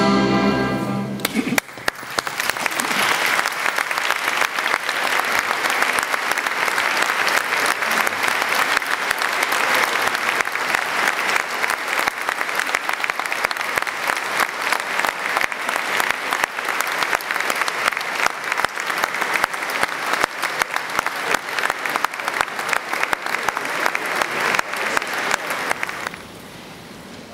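A string and brass orchestra sounding its last notes for about a second, then an audience applauding steadily; the applause cuts off abruptly near the end.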